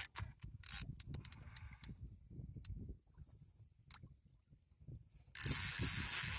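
Fishing reel drag paying out line under a hooked sturgeon's pull: a few short buzzes in the first two seconds, a lull, then a long steady buzz from about five seconds in as the fish runs.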